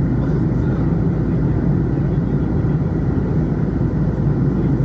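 Steady low drone of an Airbus A321neo's jet engines and rushing airflow, heard inside the passenger cabin in flight.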